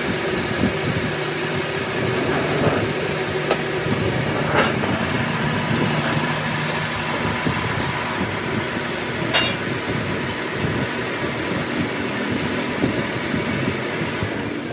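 A machine running steadily, with a few sharp clicks or knocks.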